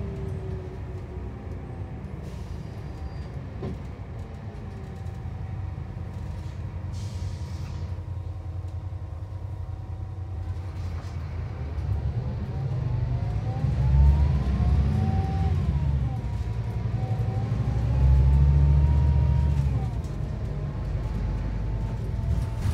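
Scania K360 coach's diesel engine and driveline heard from inside the passenger cabin while driving: a steady low rumble with whines that rise and fall in pitch as the coach accelerates through the gears, loudest about fourteen seconds in and again from about eighteen to twenty seconds.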